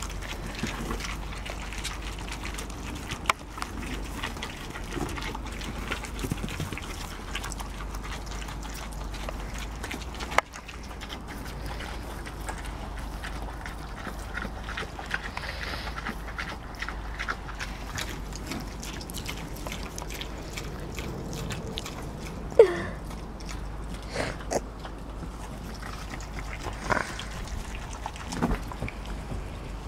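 Kunekune pigs, a sow and her three-week-old piglets, eating grain, with many small clicks of chewing and rooting and a few short grunts and squeals. The loudest is a sharp squeal about two-thirds of the way in.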